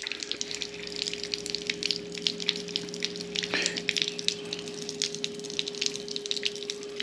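Water spraying and splattering from the showerhead of a portable propane water heater, over the steady hum of its built-in electric pump drawing water from a bucket.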